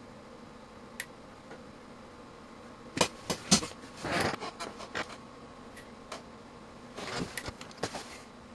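The rotary range switch of a BK Precision 2703C multimeter being turned by hand, clicking through its detents. There is a single click about a second in, then two bursts of sharp clicks and clatter, each lasting one to two seconds.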